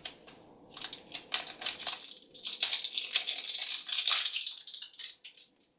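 Crinkling and tearing of a toy surprise package's wrapping as it is opened by hand: a few clicks, then a dense run of crackles lasting about four seconds.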